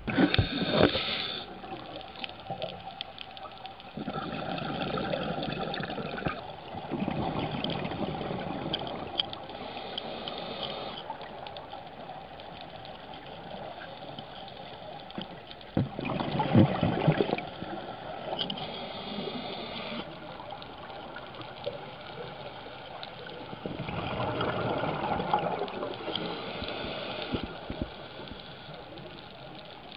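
Scuba diver's exhaled bubbles from a regulator, heard underwater: a surge of bubbling every few seconds, with a steady hiss between.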